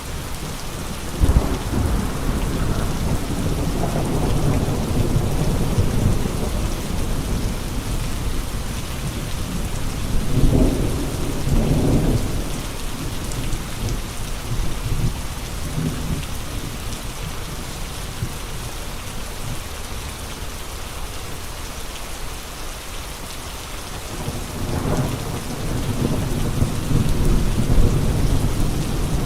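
Steady rain falling, with three long low rumbling surges that swell and fade, the first starting with a sudden jolt about a second in.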